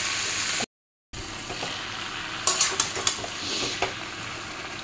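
Spinach and potato pieces sizzling in oil in a frying pan. The sound drops out completely for a moment a little under a second in. From about halfway, a spatula stirs the vegetables with a run of sharp clicks and scrapes against the pan.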